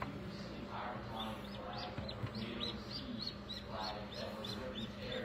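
Newly hatched duckling peeping: a run of short, high, falling peeps, about four a second, starting about a second in.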